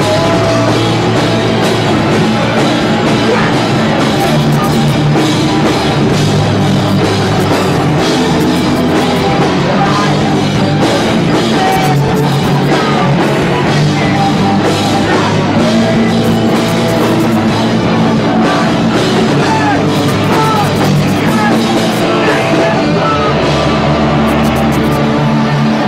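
Rock band playing loud, with distorted electric guitar, bass and a drum kit.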